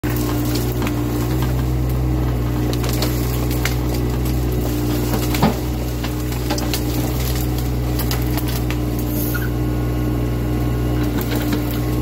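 Excavator's diesel engine running steadily, with scattered crackles and snaps of twigs and branches as the arm pushes into the trees, and one sharper crack about five and a half seconds in.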